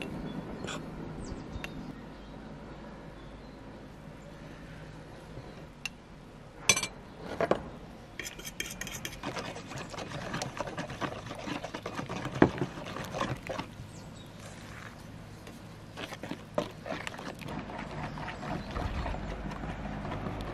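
Corn flour batter being mixed by hand in an enamel bowl: a metal spoon scraping flour into a glass, then flour poured from the glass into the liquid and stirred in with a wooden spoon. A few sharp clinks come about 7 and 12 seconds in.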